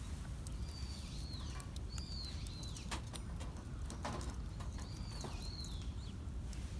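A bird singing outdoors: two phrases of high, arched whistled notes, the first about half a second in, the second about five seconds in, over sharp scattered crackles from a campfire and a steady low rumble.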